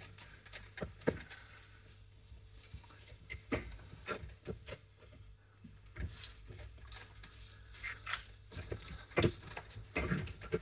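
Scattered light clicks and taps of hand tools working on a brake caliper.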